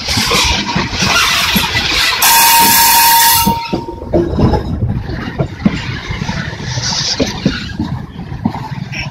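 Goods wagons of a freight train rolling past, wheels knocking over the rail joints amid a rushing noise. About two seconds in, a loud burst of rushing noise with a thin high tone lasts just over a second.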